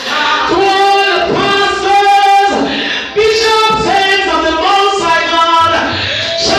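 Voices singing together in church worship, in long held notes, with a brief break about three seconds in.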